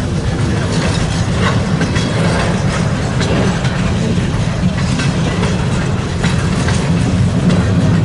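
Freight cars, a bulkhead flatcar and then coil steel cars, rolling past close by: a steady rumble with wheels clicking over rail joints every second or so.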